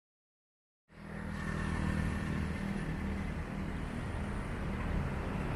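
Silence for about the first second, then city street ambience fades in: a steady low hum with the wash of road traffic.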